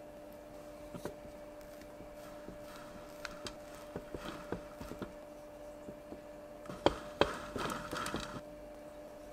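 Light kitchen handling sounds of assembling a cake: scattered soft taps and clicks as strawberries and cream are worked on a turntable, two sharp clicks about seven seconds in, then a brief scrape of a metal palette knife spreading cream. A steady low hum runs underneath.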